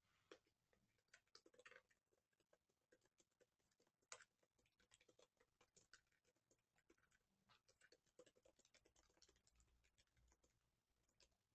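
Very faint, irregular typing on a computer keyboard: quick key clicks, several a second, with short gaps.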